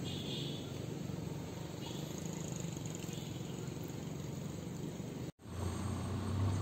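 Outdoor ambience: a steady low rumble with faint high insect chirps over it. The sound drops out for a moment about five seconds in, and the rumble is louder after the break.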